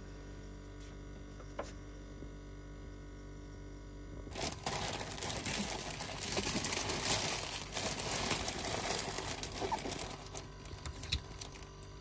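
Clear cellophane and tissue paper crinkling as they are folded and pressed around a flower bouquet. The sound starts suddenly about four seconds in and is dense for several seconds, then thins to scattered crackles near the end.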